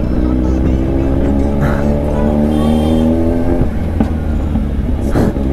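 Kawasaki Z1000's inline-four engine running as the bike rides along, its pitch climbing slowly, with a short break a little past halfway before it carries on. A heavy low rumble, typical of wind on a helmet microphone, lies underneath.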